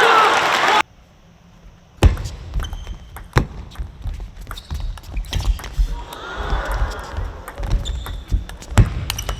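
Table tennis rally: a plastic ball clicking sharply off rackets and the table at an irregular pace of roughly one hit every half second to a second, over low thuds of the players' footwork. The rally starts about two seconds in, after a brief near-quiet.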